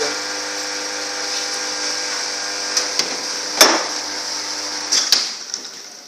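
Lavazza hybrid espresso machine's pump running steadily with a hiss while an espresso shot is brewing, shutting off about five seconds in. A few sharp clicks, the loudest a little after halfway and another just as the pump stops.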